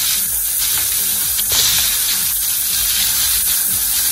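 Beef steaks sizzling steadily in a hot frying pan, searing to brown before being flipped.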